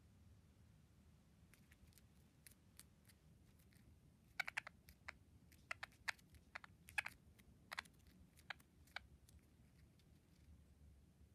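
Budgerigar pecking with its beak at a thumb and the plastic TV remote it stands on: a run of sharp, irregular clicks, sparse at first and then quick and loudest in the middle.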